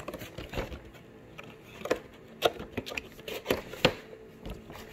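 Cardboard and clear-plastic display box being handled and turned over: scattered taps, knocks and rustles at irregular intervals.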